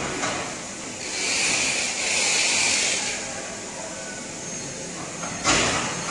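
EPE foam laminating machine running with a steady mechanical noise. A hiss swells for about two seconds near the start, and a sudden loud knock comes about five and a half seconds in.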